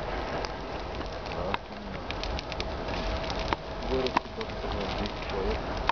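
Dry grass fire crackling: irregular sharp pops and snaps over a steady rushing hiss.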